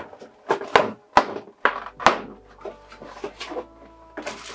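Plastic packaging being handled as an anime figure and its base are taken out of their plastic tray: several sharp clicks and knocks, the loudest in the first two seconds, then softer handling noises.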